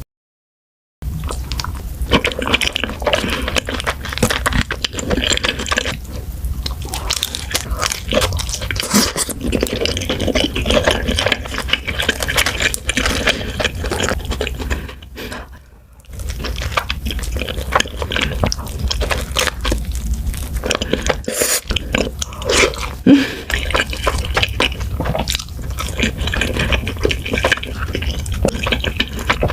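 Close-miked eating sounds: wet chewing and crunching bites, with a short break about halfway through.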